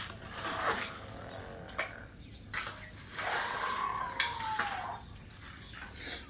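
Clicking and rattling of a plastic toy bulldozer being handled, with a drawn-out tone that rises and then falls about halfway through.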